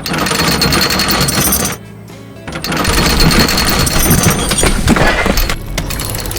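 A loud, rapid mechanical rattle, like a power tool, together with background music; it breaks off for about a second about two seconds in, then resumes.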